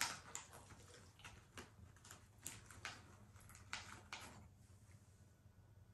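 Near silence with faint, scattered clicks and small smacks as dogs take treats from a hand; they die away after about four seconds.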